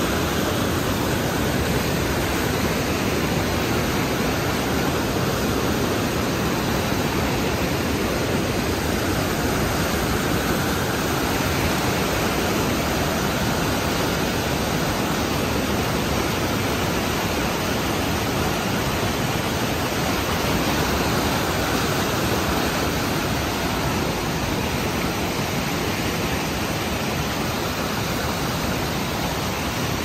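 Whitewater rapids of the Ruskeala waterfalls rushing over rocks, a loud, steady, unbroken rush of water.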